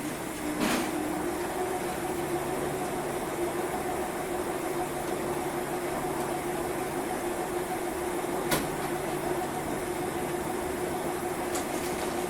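Washing machine in its spin cycle: the drum spinning at speed with a steady motor whine over a running hum. The whine rises into pitch right at the start, and there are sharp clicks about a second in and again near eight and a half seconds.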